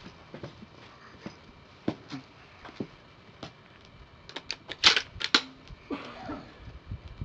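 Handling noise as a shooter settles prone behind a bolt-action rifle: scattered light clicks and rustles, with a quick run of sharp clicks about four and a half to five and a half seconds in.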